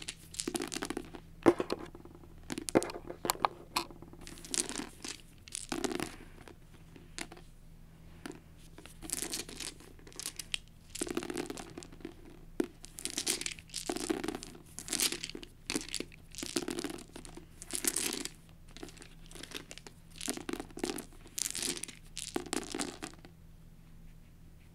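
Plastic six-sided dice being handled and rolled onto a paperback book cover: repeated short rustling and scraping sounds, about one a second, with a few sharp clicks in the first few seconds.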